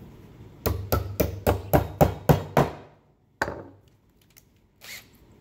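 Hammer driving a nail into a pine board: about eight quick blows, roughly four a second, then a single knock shortly after.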